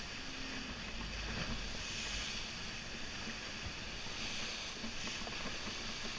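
Steady hiss of water rushing and spraying past the hull of an ocean racing yacht sailing at speed, with some wind.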